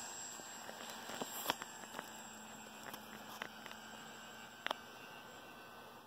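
Electric motor and propeller of a radio-controlled Sport Cub model plane, a steady hum that fades slowly as the plane flies away after takeoff. A few faint sharp clicks, the clearest about a second and a half in and near the end.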